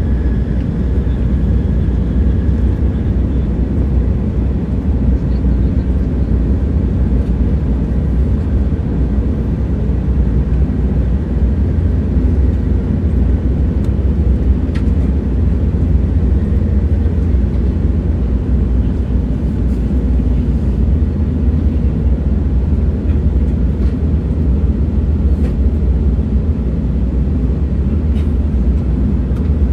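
Moving train's steady low rumble, with a faint high whine fading out in the first few seconds.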